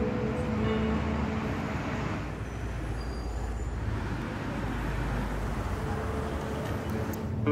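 City road traffic: a steady low rumble and hiss of passing vehicles.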